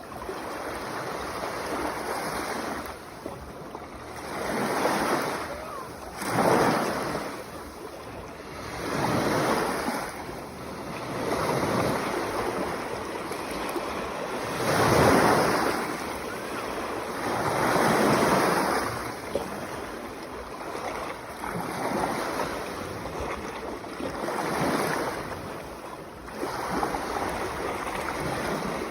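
Sea waves washing onto the shore, each surge swelling and falling away every two to three seconds, the strongest about halfway through.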